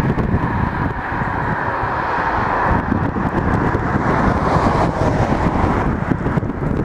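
Steady outdoor traffic noise with wind buffeting the microphone in low, gusty rumbles.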